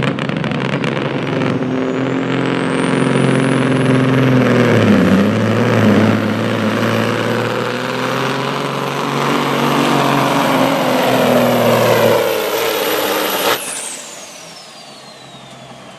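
Semi truck's diesel engine at full throttle pulling a weight-transfer sled, with a turbocharger whistle that rises over the first few seconds and then holds high. About 13 seconds in, the throttle is suddenly cut; the engine drops away and the turbo whine winds down.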